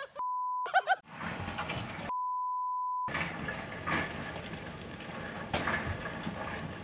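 Two steady censor bleeps, a short one and then one about a second long. From about three seconds in, hail clatters steadily against a window and the ground, with scattered sharper hits.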